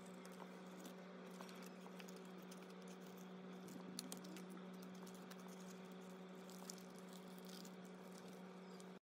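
Faint crinkling and clicking of clear plastic photocard sleeves in a ring binder as cards are slid in and pages turned, with a louder pair of clicks about four seconds in, over a steady low hum. The sound cuts off abruptly near the end.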